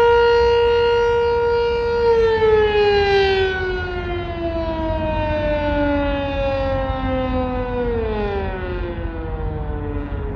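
Sentry 7V8 electromechanical outdoor warning siren holding a steady tone, then, about two seconds in, winding down as it shuts off after the test: the pitch falls slowly, with a sharper drop near the end.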